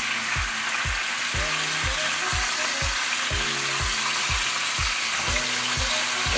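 Smoked pork neck bones sizzling in hot fat and liquid as they brown in a pot, with the meat being turned over with a plastic spoon. Background music with a steady beat plays under the steady sizzle.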